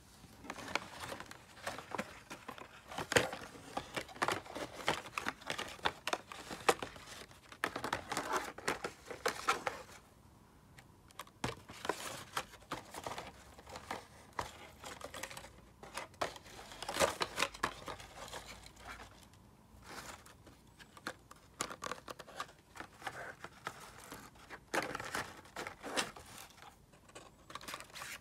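Hot Wheels blister packs being handled and shuffled: stiff plastic blisters crinkling and card backs sliding and tapping together, in irregular spells with short pauses.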